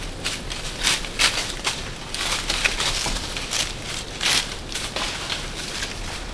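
Footsteps crunching through dry fallen leaves, an irregular series of short crackling steps.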